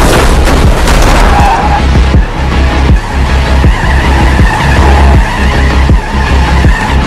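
Action-film soundtrack: a loud driving score with a pulsing low bass and sharp percussion hits, mixed with the road and engine noise of a truck moving at speed.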